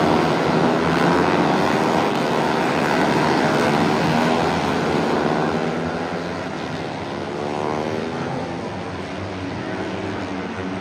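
Moto3 race bikes' 250 cc single-cylinder four-stroke engines at high revs going past as a group, several engine notes overlapping. One bike's note falls clearly in pitch as it passes, a little past halfway.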